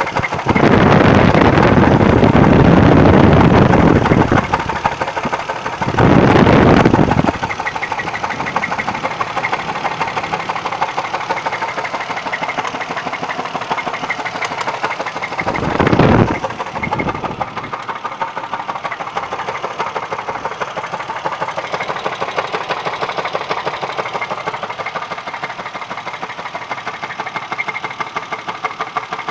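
An engine running with a fast, steady knocking, swelling louder three times: for a few seconds near the start, briefly around six seconds in, and briefly around sixteen seconds in. The cause of the knock is unknown to the owner.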